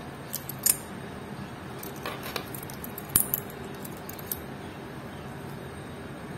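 Stainless steel watch bracelet links and clasp clinking and clicking as the watch is handled, about seven sharp metallic clicks over the first four seconds or so.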